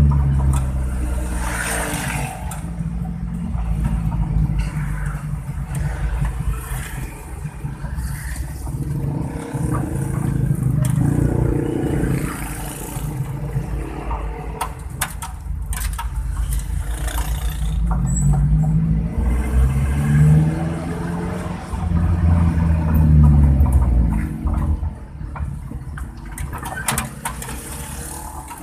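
Suzuki Carry engine and exhaust under way with a deep snoring rumble like a bus. The engine note climbs and falls again several times as it revs through the gears, most clearly in the second half.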